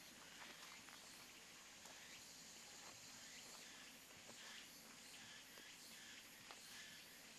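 Faint forest ambience: insects chirring, with a few soft footsteps on a dirt trail.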